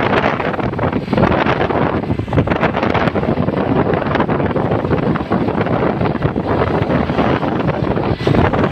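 Loud wind buffeting the microphone over steady road and engine noise while moving along in traffic; no horn is sounding.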